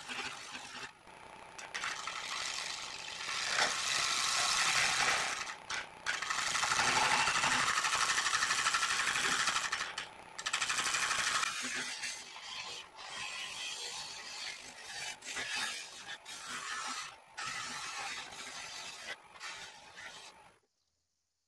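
Wood lathe spinning a hollowed sycamore vase while a negative rake scraper takes light cuts deep inside it: a steady scraping hiss with a faint high whine. The sound drops out abruptly several times and stops suddenly near the end.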